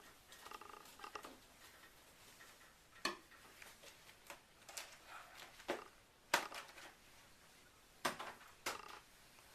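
Scattered light knocks, clicks and scrapes of soapmaking utensils and containers being handled, such as a spatula against the mixing container. The sharpest knock comes about six seconds in, and there is a pair close together near the end.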